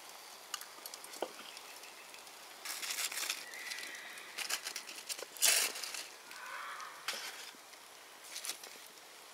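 Metal tongs clicking and scraping as foil parcels are pulled from wood-fire coals and set down, with the aluminium foil crinkling and the fire crackling softly. Irregular clicks and short rustles, the loudest about five and a half seconds in.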